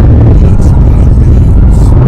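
Car engine and road noise while driving, a steady low drone, with music playing along with it.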